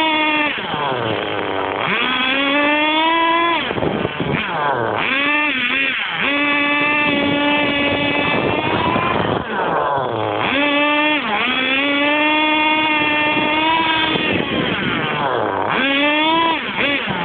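Small nitro RC car engine revving hard, heard from a camera mounted on the car. Its pitch climbs, holds high and steady for a few seconds at full throttle, then drops away as the throttle is released; this happens about three times.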